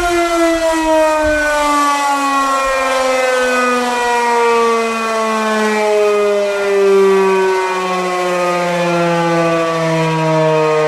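Single-phase Federal Signal Model 5B outdoor warning siren winding down, one loud tone falling slowly and steadily in pitch as the rotor coasts.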